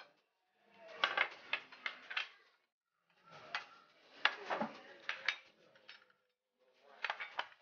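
Light clinks and clatters of plates and cutlery on a table, in several short clusters with silent gaps between them.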